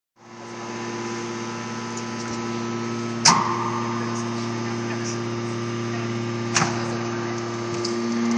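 Hydraulic deep-drawing press running with a steady hum, and two sharp clicks about three seconds apart, the first the louder. The hum grows a little louder near the end.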